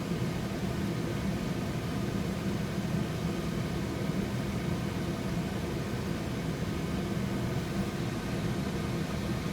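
Steady low rumble and hiss of a covered pot of water boiling on the stove, steaming potatoes and carrots.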